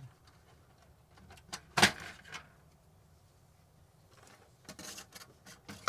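Expansion card being pulled out of a Macintosh IIx: one sharp clack about two seconds in, then lighter rattling and clicks near the end.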